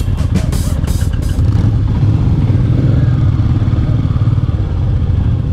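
Motorcycle engine running at low, steady revs while riding a dirt road. A few sharp clicks or knocks sound in the first second and a half.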